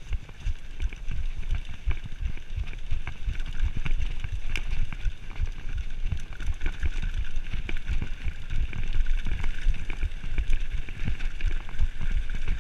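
Mountain bike rolling fast down a dirt singletrack: the tyres rumble over the trail, wind buffets the camera microphone, and the bike's parts rattle and click over bumps.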